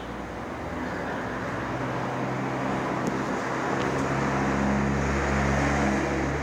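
A motor vehicle's engine running close by with a low, steady hum, growing louder over the few seconds.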